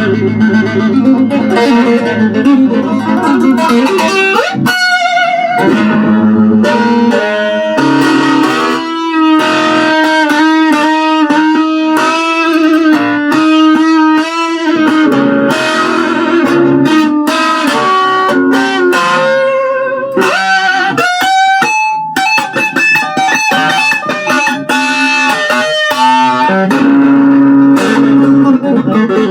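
Instrumental break of a song: an electric guitar plays a lead line with fast runs of short notes over a low accompaniment.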